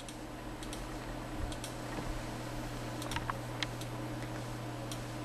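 A few light, irregularly spaced clicks from working a computer as its on-screen map is zoomed in, over a steady low electrical hum.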